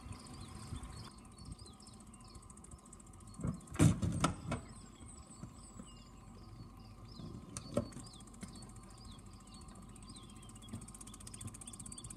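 Small animals chirping rapidly and continuously from the shore. A cluster of loud knocks comes about four seconds in, and another single knock near eight seconds.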